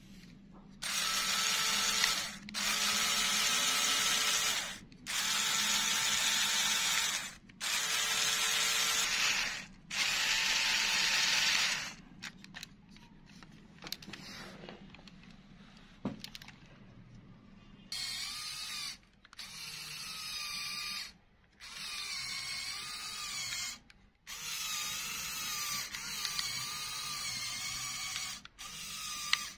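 LEGO Technic electric motor whirring through its plastic gear train in five bursts of about two seconds, each a steady whine. Later come quieter, longer runs whose pitch wavers up and down.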